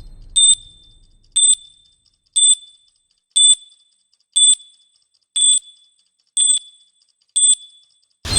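Countdown timer sound effect: a short, high electronic beep once a second. A low rumble fades out over the first second or so, and a loud low boom hits just before the end.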